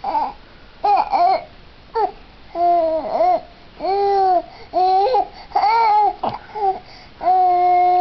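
A six-and-a-half-month-old baby babbling: a string of short "ooh" sounds, each rising and falling in pitch, ending with one longer, steadier note near the end.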